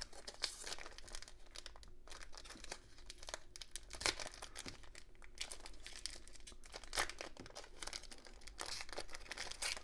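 Foil wrapper of a Topps football card pack crinkling and tearing as it is worked open by hand, in irregular crackles with a few sharper rips along the way.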